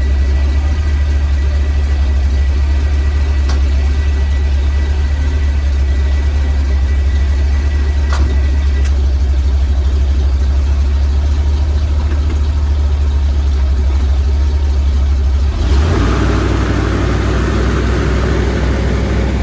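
Project truck's engine running with a low, steady rumble; its sound shifts about three quarters of the way through.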